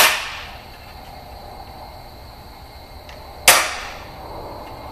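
Hammer striking a transfer punch set in a drilled hole, marking the hole's centre on steel tubing. Two sharp metallic strikes about three and a half seconds apart, each with a short ring, the first the louder.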